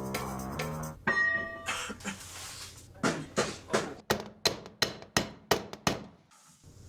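Music fading out in the first second, then about three seconds in a rapid, uneven run of about a dozen sharp thuds, three or four a second.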